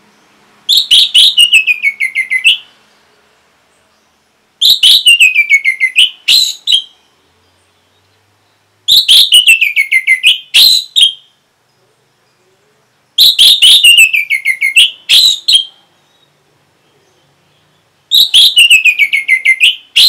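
Songbird phrase repeated five times, about every four seconds: a quick run of sharp notes falling in pitch, then one or two short higher notes.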